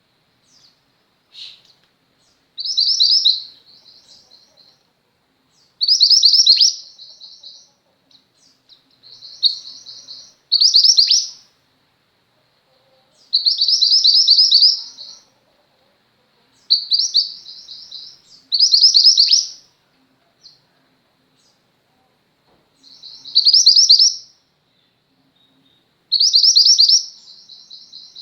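A female mantenan gunung songbird singing: short, high, fast-trilled phrases of about a second each, repeated every two to three seconds, about nine in all.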